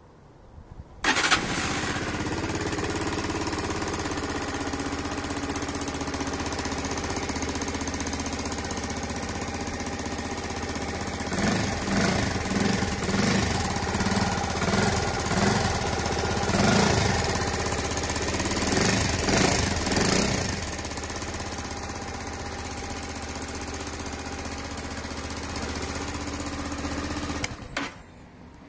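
Daelim Daystar FI 125's small air-cooled V-twin started on the electric starter about a second in, then idling steadily. In the middle it is blipped on the throttle in a series of short revs, settles back to idle, and is switched off shortly before the end.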